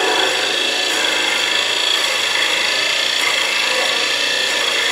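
Wood lathe running while a 1¾-inch Forstner bit, fed from the tailstock quill, bores into the spinning wood: a steady cutting noise over the lathe's whine.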